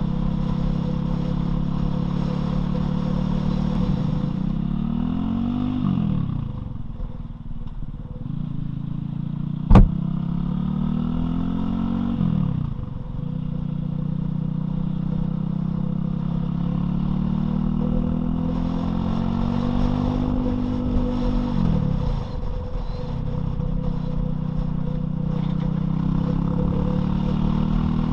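Loncin LX250-12C motorcycle's single-cylinder engine running on the move, its revs climbing and then dropping back several times. A single sharp knock about ten seconds in.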